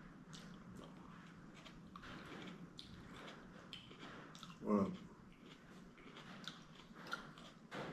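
A person chewing noodles with the mouth close to the microphone: soft, wet mouth clicks scattered throughout. A brief voiced hum comes a little under halfway through.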